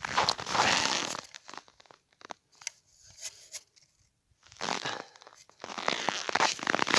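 Felt boots crunching in dry, frozen snow and ice slush, in two spells with a quiet pause of about three seconds in the middle.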